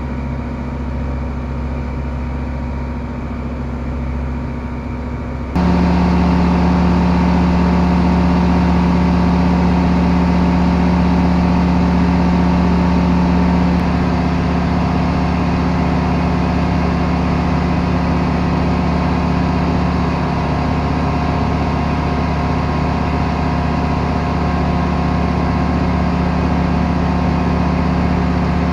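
Pipistrel Virus SW light aircraft's Rotax 912 four-cylinder engine and propeller running steadily in cruise flight, heard from inside the cockpit. About five seconds in, the sound jumps louder and then holds steady.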